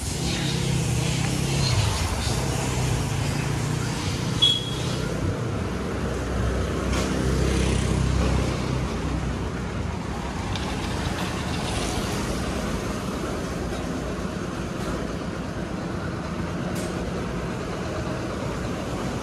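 Street traffic: a vehicle engine running close by, its low rumble strongest over the first several seconds and then easing. A short high beep sounds about four and a half seconds in.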